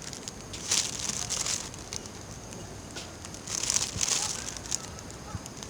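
Cooking over a campfire: crackling, with two swells of hissing sizzle, one about a second in and a longer one past the middle, and a few sharp pops.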